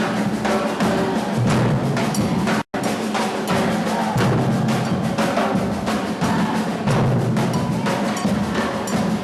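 Percussion group drumming a steady, driving rhythm, with deep bass drums under sharper snare-like strokes. The sound cuts out for an instant about two and a half seconds in.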